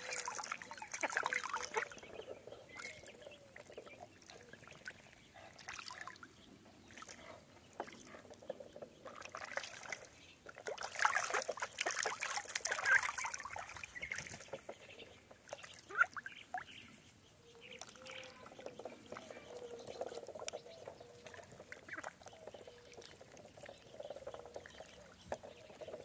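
Water splashing and dribbling as ducks paddle and dabble in a shallow plastic kiddie pool, in louder bouts at the start and around the middle.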